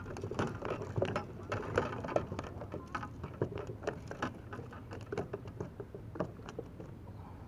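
Small waves lapping and slapping against a kayak hull: a run of irregular light taps and splashes, thickest over the first few seconds and thinning out toward the end.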